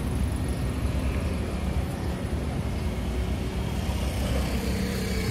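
Road traffic running past: motor vehicle engines and tyres give a steady low rumble, with one engine growing louder near the end.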